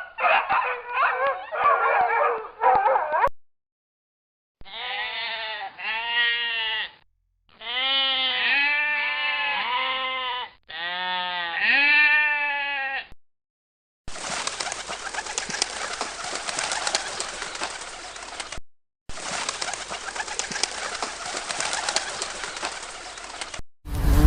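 A run of separate animal-call clips: a short raspy, noisy stretch, then three bursts of repeated arching pitched calls, then a steady hissing buzz.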